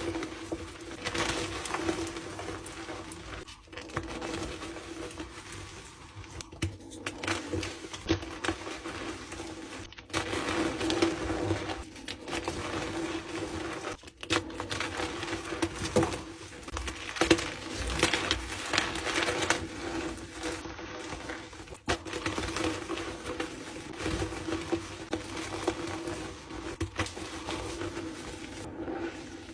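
Blocks of dyed gym chalk being crushed and crumbled by hand, a dense crunchy crackling with many small snaps. It breaks off abruptly several times, and a steady low hum runs underneath.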